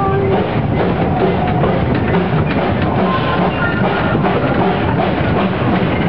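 Small steam locomotive running along the track, heard from the car just behind it: a steady, fast clatter of exhaust chuffs and wheels on the rails.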